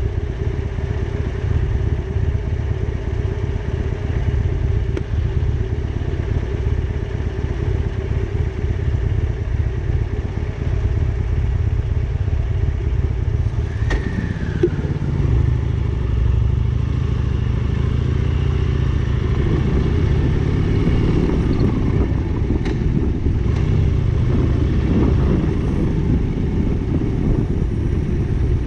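Motorcycle engine running steadily under way, with a heavy low rumble. Shortly before halfway there is a click, and the engine note then rises and falls for several seconds as the speed changes.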